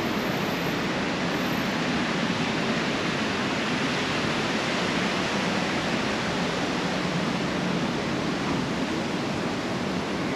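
A steady, even rushing noise with no distinct events, loud throughout.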